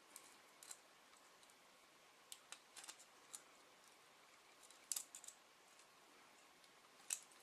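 Faint, scattered clicks and ticks of a steel paper clip being bent into a lock-pick rake, with two sharper clicks about five and seven seconds in.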